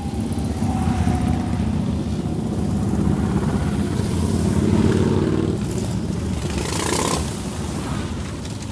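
A line of motorcycles riding past close by in procession, engines running. The sound swells and fades as each bike passes, with a brief louder burst about seven seconds in.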